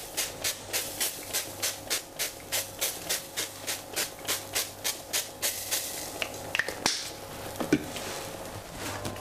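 Hand-pumped oil sprayer squirting light cooking oil into a hot stainless steel pot in quick, even bursts, about three a second, for the first five seconds or so. After that the oil hisses in the pan, with a few sharp pops.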